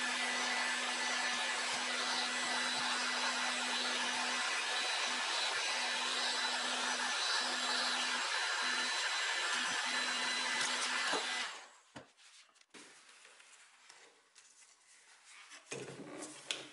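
Makita heat gun blowing steadily with a constant hum, heating old veneer so it can be scraped off; it cuts off about 11 seconds in. Then come soft scraping and rubbing, and a few light knocks near the end.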